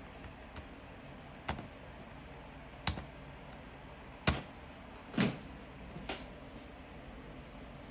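About six sharp, irregular clicks and taps of small hard parts or tools being handled, the loudest two about four and five seconds in, over a steady low hum.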